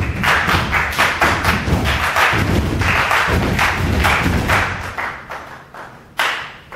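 Body percussion by a stepping troupe: rhythmic stomps and claps, about three hits a second, dying away about five seconds in, then one last sharp hit about six seconds in.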